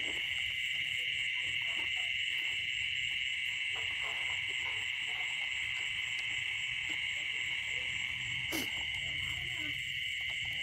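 Dense, steady chorus of small frogs calling after rain, with a higher pulsing insect trill over it; a single sharp click a little past eight seconds.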